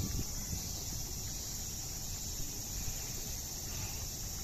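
Steady high-pitched chirring of insects, unbroken and even, over a low outdoor rumble.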